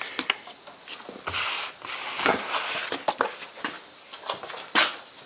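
Irregular hisses of compressed air from the all-wood model 'Minnie' traction engine, the longest lasting about half a second, mixed with light clicks and knocks of its wooden levers and gearing being worked by hand.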